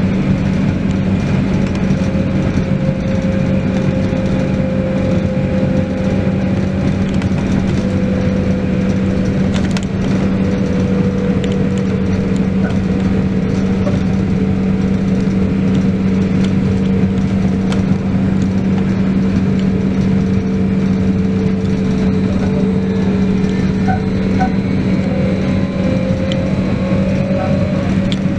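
Trolleybus running: a steady electric hum over road noise, with a motor whine whose pitch slowly sinks for most of the stretch and climbs again near the end as the speed changes.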